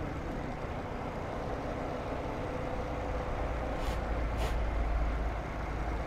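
Steady road and traffic noise heard from a moving vehicle: a low rumble of engines and tyres, with two short hisses in quick succession about four seconds in.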